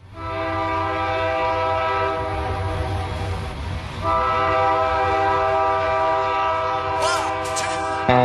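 Train horn sounding two long held blasts, the second starting about four seconds in, over the low rumble of a moving train.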